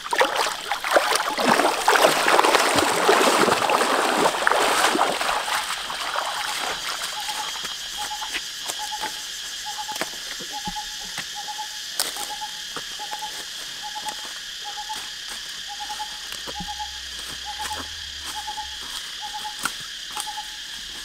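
Water splashing as people wade through a shallow river, loudest in the first few seconds and fading out by about six seconds in. Then a bird's single hooting note repeats steadily about every two-thirds of a second over a steady insect drone.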